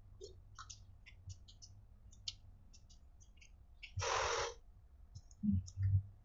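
Close-miked mukbang eating: scattered small wet mouth clicks of someone chewing seblak, a short noisy burst about four seconds in, and two soft low thumps near the end.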